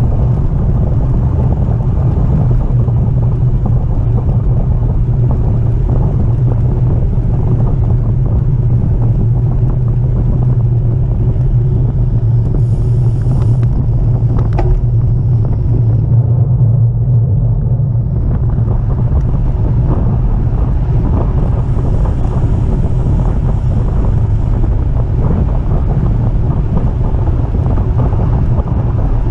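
Wind rumbling on the microphone of a camera mounted on a moving road bicycle. The noise is loud and steady, sitting mostly in the low range.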